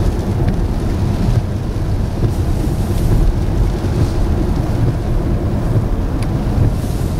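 Strong wind buffeting the microphone: a heavy, steady low rumble.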